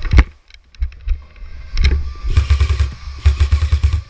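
Airsoft guns firing two rapid full-auto bursts, about two and three seconds in, after a single sharp knock near the start.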